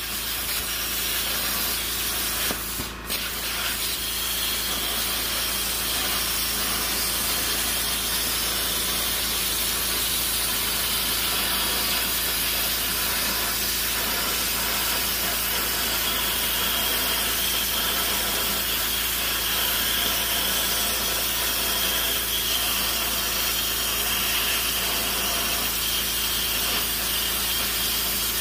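CNC plasma cutter torch cutting through a metal disc, a steady harsh hiss of the arc and air jet. The hiss drops out briefly about three seconds in, then runs on evenly.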